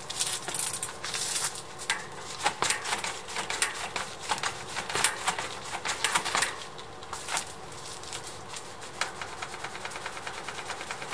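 Mountain bike being handled and compressed on its front suspension fork, giving irregular clicks, knocks and rattles. From about nine seconds in, a rapid even ticking of the rear freewheel ratchet takes over.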